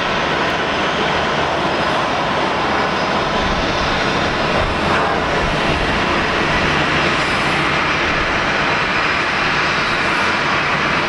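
Airbus A320-211 airliner's two CFM56 turbofan engines running on the runway at the start of a takeoff: a steady, even jet noise.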